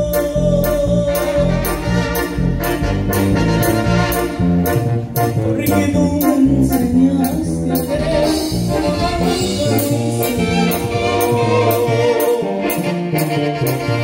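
Live dance band playing, with brass (trumpets) over a quick, steady beat.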